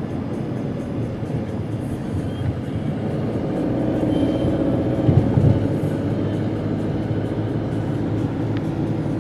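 Car interior road noise while driving: steady engine and tyre rumble heard inside the cabin, swelling briefly about five seconds in.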